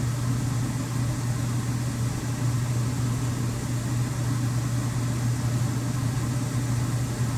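Steady low hum with a faint hiss over it, unchanging and without any knocks or breaks.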